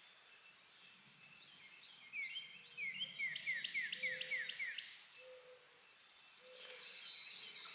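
A songbird singing in the woods: a string of quick down-slurred whistled notes, about two a second, with a fast run of higher notes in the middle of the phrase, loudest from about two to five seconds in. A few faint, short low notes sound in the distance behind it.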